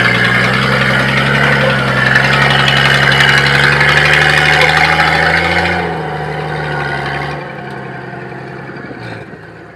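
Classic Ford F-150 pickup's engine working under load as it crawls up a steep slickrock slope, running steadily with its pitch slowly rising. It drops away about six seconds in as the truck crests the top, and fades out near the end.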